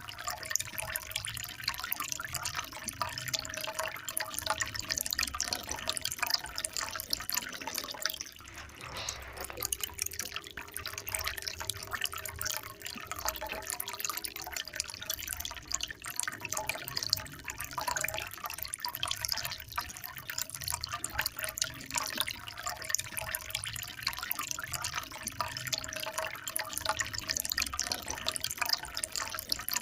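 Water trickling and splashing in a steady stream of small drips and splashes, with a brief lull about eight seconds in.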